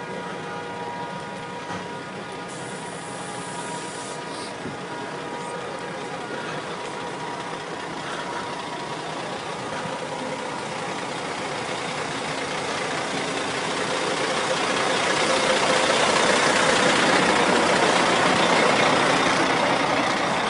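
A vehicle horn sounding a steady, continuous tone that fades out several seconds in. Then the rushing noise of traffic and engines swells and is at its loudest near the end.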